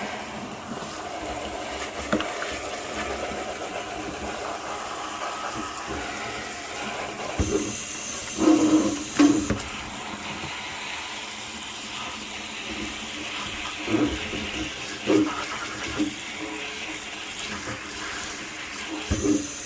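Kitchen sink sprayer spraying water onto a dusty reusable air-conditioner filter, rinsing the dust off: a steady rush of water, with a few brief louder moments as the spray hits.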